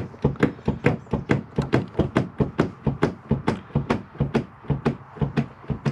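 A rapid, regular series of sharp knocks, about four a second.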